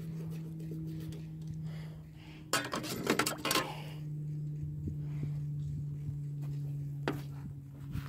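A knife and hands clatter and click against a glass tabletop for about a second, starting about two and a half seconds in, with one more click near the end, over a steady low hum.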